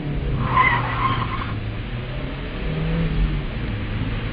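Car engine revving hard as the vehicle speeds off, with a short tyre squeal about half a second in. The engine note climbs a few seconds in.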